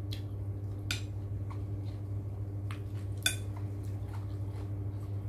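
Metal spoon clinking and scraping against a bowl several times, with the sharpest clink just past three seconds in, over a steady low hum.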